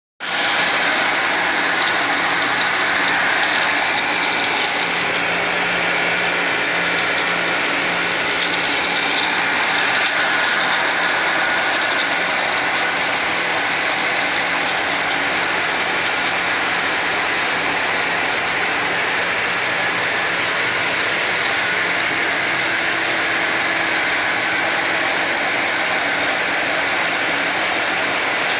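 Wire saw cutting through seven-foot-thick concrete: a steady mechanical noise with a constant low hum beneath it.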